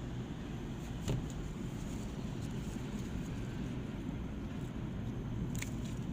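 Scissors snipping sweet basil stems, two crisp snips: one about a second in and one near the end. Under them runs a steady low rumble.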